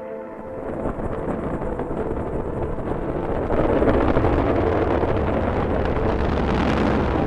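Delta II rocket's engines at liftoff: a dense rumbling noise that swells about a second in and grows louder again about three and a half seconds in.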